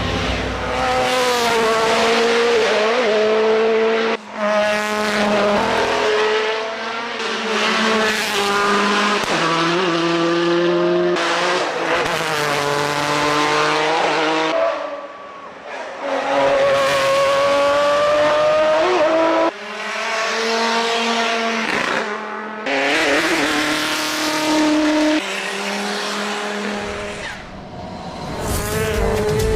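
Subaru WRX race car's turbocharged boxer four-cylinder engine at full throttle, its pitch climbing through each gear and dropping at every shift, many times over.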